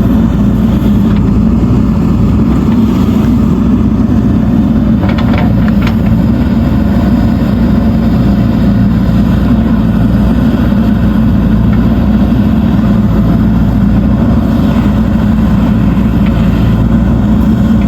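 Diesel engine of a JCB 3DX backhoe loader running steadily at working speed, with a few brief metallic clatters about five seconds in.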